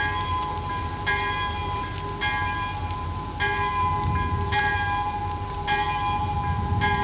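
Single church bell tolling slowly, one stroke a little more than once a second, each stroke ringing on into the next: a funeral toll.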